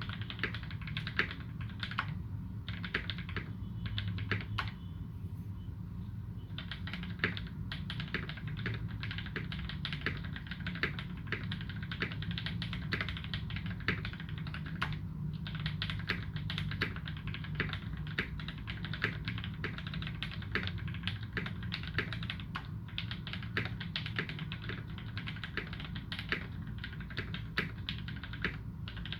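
Continuous typing on a custom UTD360C mechanical keyboard with lubed Gateron Ink Black v2 linear switches and GMK Dolch keycaps: a steady run of keystroke clacks, with a short lull about five seconds in.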